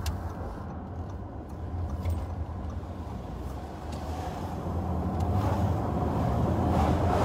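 Road and engine noise inside a moving car's cabin: a steady low rumble that grows louder over the last couple of seconds.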